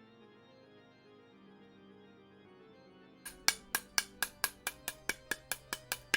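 Soft organ background music, then about three seconds in a spoon starts rapping on the salsa jar's metal lid: a quick, even run of sharp clinks, about four or five a second, to loosen the stuck lid.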